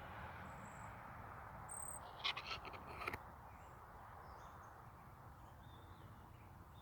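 Outdoor background noise with a few faint, short, high bird chirps, and a brief rattle of sharp clicks a little over two seconds in.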